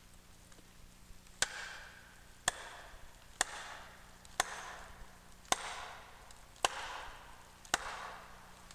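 Falling axe driving a wedge into the back cut of a large standing tree: seven sharp blows about a second apart, starting about a second and a half in, each with a short ring. The wedge is being hammered in to tip the tree over.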